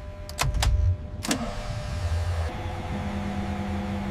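F-35's jet engine starting up: a few sharp clicks in the first second or so, then a steady rushing run, with a low steady hum settling in about three seconds in as it comes up to idle.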